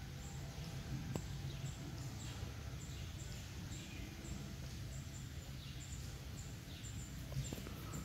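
Outdoor background noise with a steady low rumble, and a few faint short chirps scattered through.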